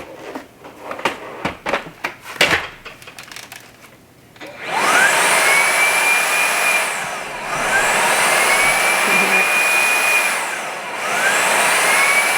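Clicks and knocks as a cordless stick vacuum is seated in its docking station. Then the Jigoo V700 clean station's suction motor starts up with a rising whine, automatically emptying the vacuum's dust bin into the station's bag. The motor dips and spins up again three times, about every three seconds.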